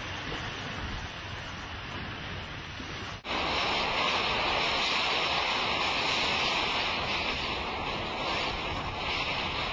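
Steady rushing noise of wind and water. About three seconds in it cuts sharply to a louder, hissier rush of hurricane wind and driving rain.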